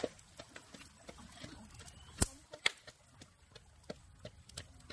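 A series of sharp, irregular clicks and snaps, the loudest two a little after halfway through.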